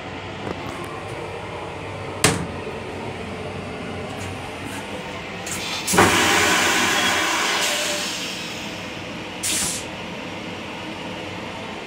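Long Island Rail Road M9 railcar toilet flushing: a sudden loud rush about six seconds in that fades away over about two seconds, followed by a short burst of hiss a few seconds later. Earlier, the toilet seat clacks once as it is raised. The train's steady running noise continues underneath.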